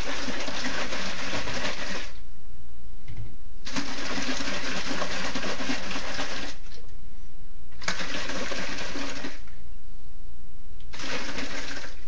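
Plastic jar of borax and hot water shaken hard by hand, the liquid sloshing and the undissolved borax rattling inside, to dissolve it. It comes in four spells of shaking, each one to three seconds long with short pauses between, the last one starting near the end.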